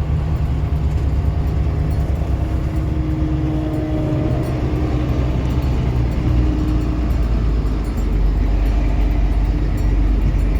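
Heavy diesel vehicle engine running steadily under load, a low continuous drone.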